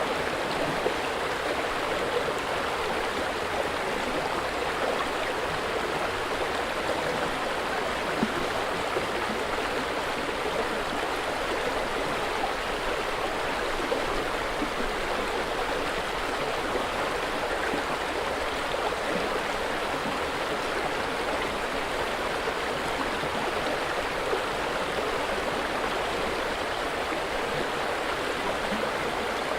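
River water flowing and babbling steadily, a continuous rush with small splashes.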